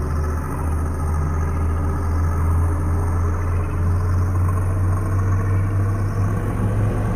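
Synthesized horror ambience: a steady, deep drone with a dense, grainy wash of higher tones above it, like the hum inside a spaceship.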